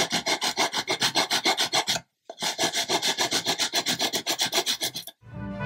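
Rapid back-and-forth sanding strokes of a round abrasive stick over the wooden planking of a model ship hull, several strokes a second, levelling raised planks. The sanding breaks off briefly about two seconds in and stops near the end, where music begins.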